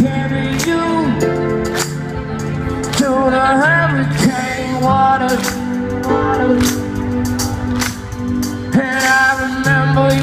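Live rock band playing with a singer holding long, wavering notes over guitar and drums, recorded from within the audience.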